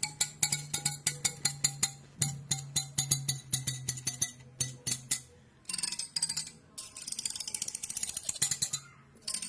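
Hair comb strokes for ASMR: rapid runs of crisp clicking, several clicks a second, broken by short pauses.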